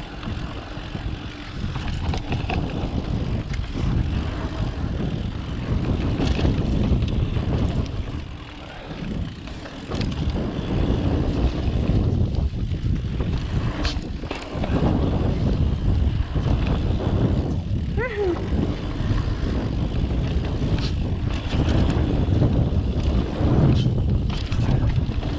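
Wind buffeting the camera microphone and mountain-bike tyres rumbling over a dirt trail at speed, with brief rattles and knocks from the bike; the rumble eases briefly a couple of times.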